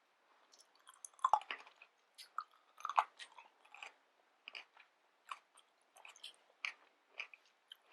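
Close-miked chewing of pickled ginger: irregular wet mouth clicks and bites, loudest about a second in and again around three seconds.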